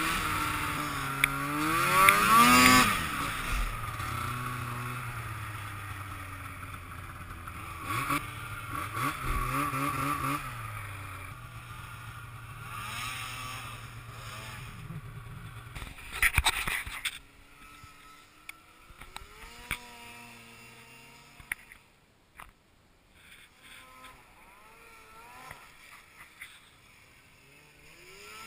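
Two-stroke snowmobile engines: a near one revs up and down, then eases off to a steady drone, with a short loud rush about two-thirds of the way in. After that, another snowmobile is heard fainter and further away, its engine rising and falling in pitch as it revs.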